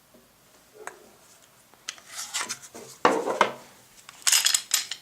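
Handling of a Glock 17 pistol: a click, then rubbing and scraping as it is picked up and moved about, and a quick rattle of clicks and clatter near the end.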